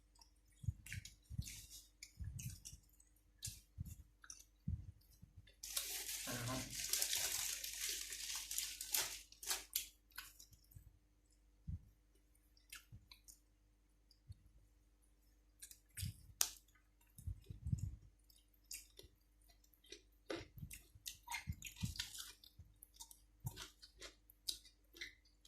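Close-miked eating sounds: chewing on grilled pork salad and raw vegetables, with scattered wet mouth clicks. About six seconds in, a few seconds of denser, crisp crunching noise.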